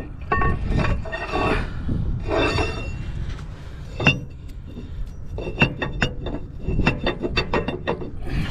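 Steel axle shaft being pushed into a motorhome's rear axle housing: metal scraping and sliding at first, a single loud knock about four seconds in, then a quick run of sharp, ringing metal-on-metal knocks and clinks as the shaft is worked into place.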